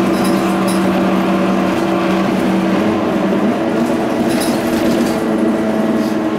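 Scania OmniLink bus's diesel engine running as the bus drives along, a steady drone heard from inside the passenger cabin, with a few short rattles about four seconds in.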